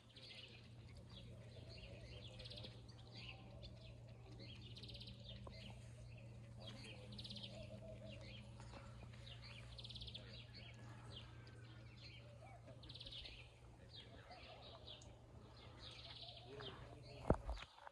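Small birds chirping and twittering in short repeated calls, faint, over a steady low hum. A sharp knock sounds near the end.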